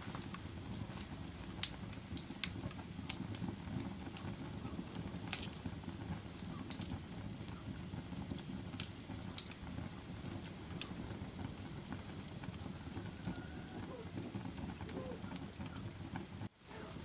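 Fire crackling: a steady low rush of flames with sharp, irregular pops and snaps. The sound cuts out for a split second near the end.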